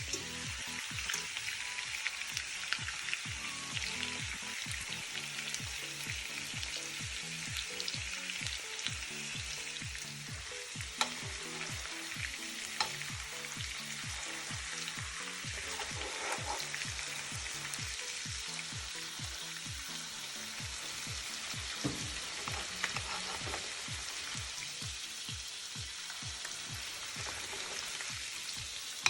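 Food sizzling steadily in a hot frying pan, with a faint low rhythmic beat underneath.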